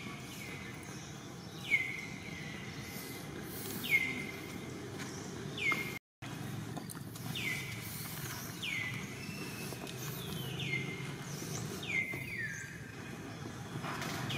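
A high, whistle-like animal call, each one sliding quickly down in pitch and then holding briefly, repeated about every one to two seconds over a steady low background noise.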